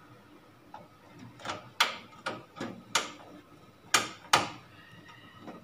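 Screwdriver working a screw on the steel PC case's rear expansion-slot bracket: a string of about eight sharp metallic clicks and scrapes at uneven intervals.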